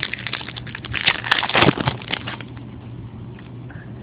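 Trading cards being handled and flipped through: a quick run of rustles, flicks and small clicks, busiest in the first two seconds, over a steady low hum.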